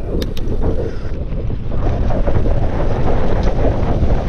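Wind buffeting the camera microphone on a fast mountain-bike descent, mixed with the crackle and rattle of tyres rolling over rough ground. Two sharp clicks sound just after the start.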